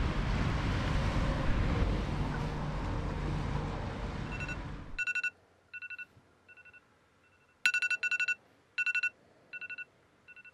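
A steady rushing noise cuts off about five seconds in. It gives way to an iPhone alarm ringing: groups of short, rapid two-tone beeps that swell and fade in loudness, loudest near the end.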